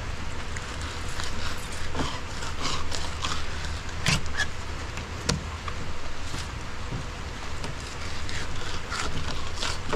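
A fillet knife slicing and scraping through redfish fillets and skin on a white plastic cleaning table, in short, scratchy strokes. There are two sharper knocks about four and five seconds in, over a steady low rumble.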